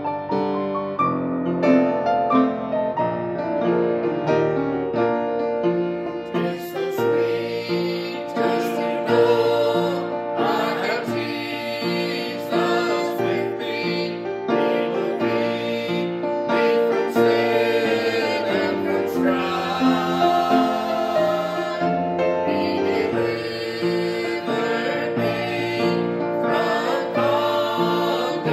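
Gospel music with piano, opening with sustained piano notes and growing fuller about six seconds in, with singing voices over the accompaniment.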